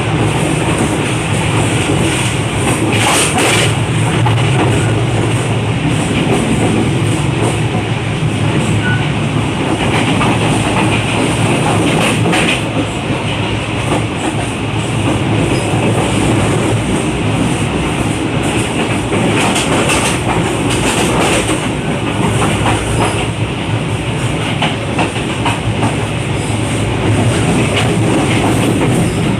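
Passenger train coach running at speed, heard from the vestibule between coaches: a loud, steady rumble of wheels on track, with sharp clacks over rail joints now and then.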